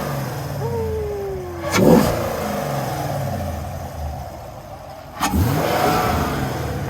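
V8 car engine fitted with new 2-inch long-tube headers and an X-pipe, idling with a steady low rumble and revved twice: a short blip about two seconds in and a longer rev about five seconds in, each falling back to idle.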